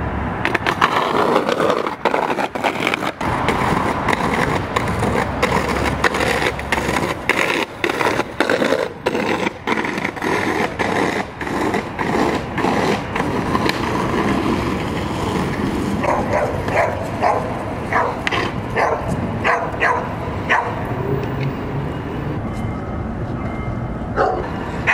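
Skateboard wheels rolling on concrete with many sharp clacks and knocks of the board on the ground and steps. Later comes a run of short pitched calls about half a second apart.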